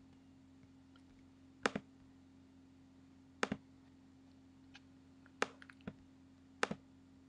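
Four sharp double clicks spaced about a second and a half to two seconds apart, over a faint steady hum.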